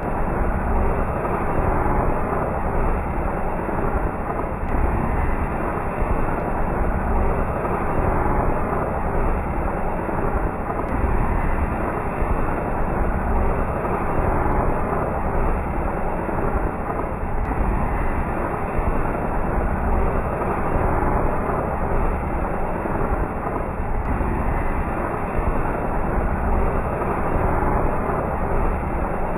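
Anar (cone fountain firework) spraying sparks with a steady, muffled rushing noise.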